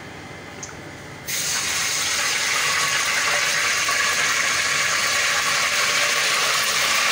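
Steady hissing noise, like rushing water, that starts abruptly about a second in after a few faint clicks and holds evenly.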